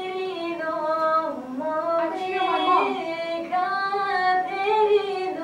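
A woman singing solo and unaccompanied: a slow melody of long held notes joined by slides, with a quick wavering ornament about halfway through.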